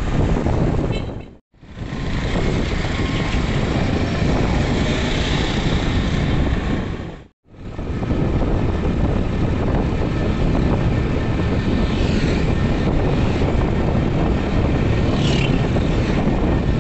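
Steady road noise from riding a motorcycle: wind rushing over the microphone with the motorbike engine's drone underneath. It drops out briefly twice, about a second and a half in and about halfway through.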